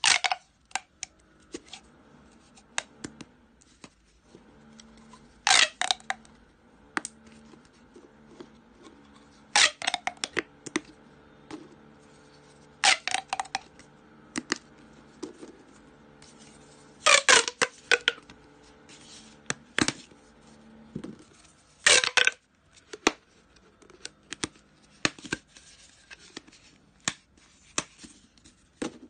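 Plastic pop tubes being bent into rings and their ends pushed together, giving short bursts of rapid crackling clicks every few seconds as the ribbed sections snap open and shut, with single clicks in between.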